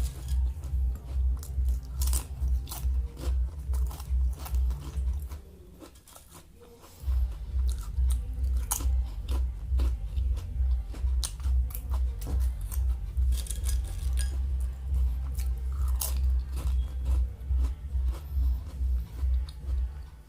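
Close-miked chewing of crunchy fried food: steady low jaw thumps about twice a second with sharp crunches over them, pausing for about a second and a half some six seconds in.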